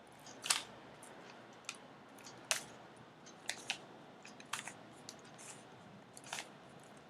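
Rubik's cube being turned by hand: its plastic layers click as they are twisted, in irregular turns of roughly one click a second, some in quick pairs.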